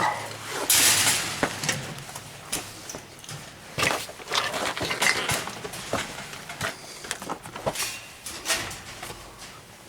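Footsteps walking, with irregular crunches and clicks and a louder rustle about a second in.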